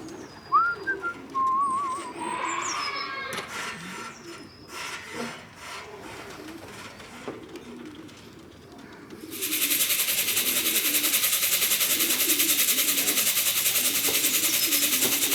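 Pigeons cooing softly, with high chirps and whistles from small birds in the first few seconds. About nine seconds in, a louder steady high-pitched hiss with a fast even pulse starts up and drowns out the birds.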